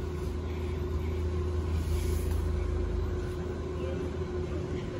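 Metal shopping cart rolling over a concrete floor: a steady low rumble and rattle from its wheels.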